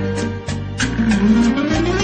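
Background music with a steady beat, and a note that slides upward through the second half.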